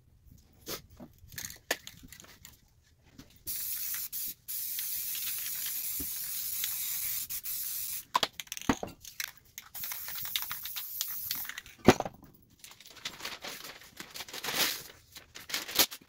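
Aerosol spray paint cans hissing in sprays of a few seconds each, with clicks of the cans being handled in between. A sharp knock about twelve seconds in is the loudest sound.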